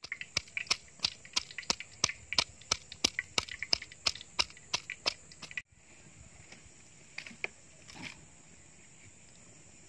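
Wooden pestle pounding garlic cloves in a small mortar, about three sharp knocks a second, cutting off abruptly about five and a half seconds in. A few scattered knocks follow over a faint steady hiss.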